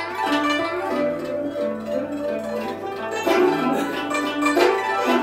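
Recording of a guzheng, the Chinese plucked zither, played solo: plucked notes ringing on, with quick flurries of notes about three seconds and about four and a half seconds in.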